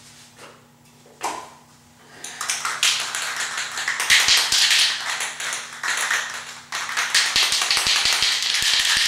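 Aerosol spray paint can being shaken hard, its mixing ball rattling rapidly; the rattling starts about two seconds in and keeps going.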